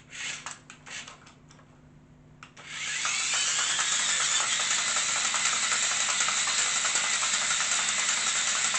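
Small electric drive motors and plastic gearing of a radio-controlled Optimus Prime toy robot whirring steadily as it spins around in circles; the whirr starts abruptly about two and a half seconds in, after a few short clicks and rustles.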